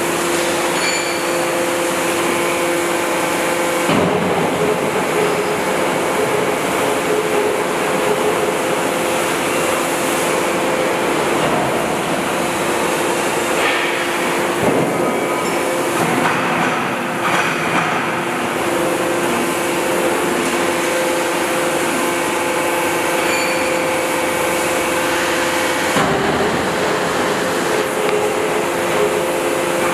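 Heavy industrial machinery running steadily: a continuous mechanical rumble with a two-note electric hum that drops out about four seconds in and comes back near the end.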